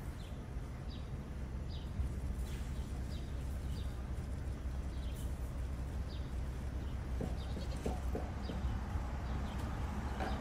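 A small bird chirping: short, high, downward-sliding chirps, one or two a second, that thin out near the end, over a steady low rumble.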